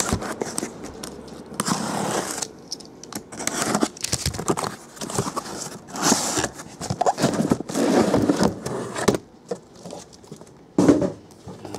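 Box cutter slitting the packing tape on a cardboard case, then the cardboard flaps pulled open and the boxes inside slid out. The sound is an uneven run of scraping, tearing and rustling.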